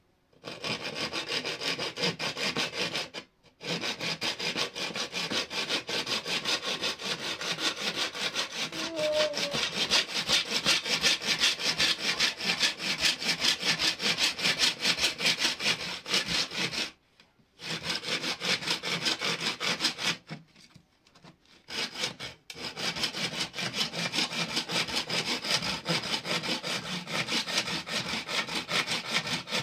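Hand saw cutting wood in steady, rapid back-and-forth strokes, stopping briefly three times.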